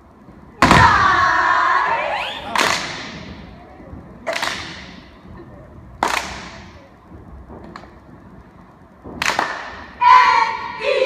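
Step team stomping and clapping in unison, about five sharp hits one to three seconds apart, each echoing around the gym. A group shout rings out after the first hit and another near the end.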